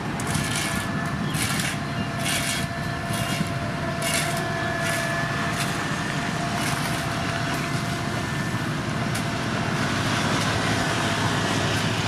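Heavy road-construction machinery running steadily with a faint whine. Short noisy bursts come about once a second during the first seven seconds.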